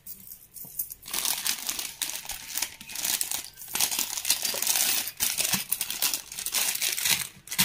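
Clear plastic jewellery packets crinkling as hands rummage through them, starting about a second in, with two brief pauses.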